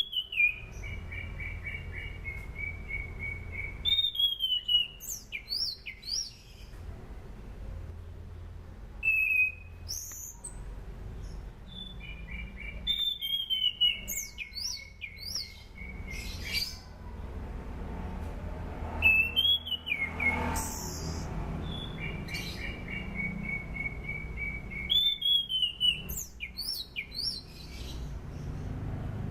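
Orange-sided thrush (anis cendana) singing in repeated phrases about every four to six seconds. Each phrase is a bright falling note, then a quick run of evenly repeated notes and sharp high whistles, over a low steady hum.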